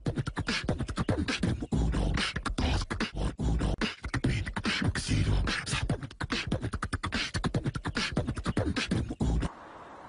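Human beatboxing: a fast rhythm of mouth-made bass kicks, snares and clicks, which cuts off suddenly near the end.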